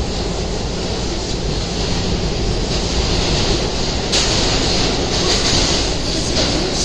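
Running noise heard inside an R211 subway car in motion: a steady low rumble of wheels on rail with a hiss over it, the hiss growing louder and brighter about four seconds in.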